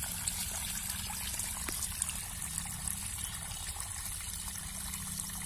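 Water running steadily out of the end of a PVC drain pipe into a shallow grassy pool, a continuous trickling splash.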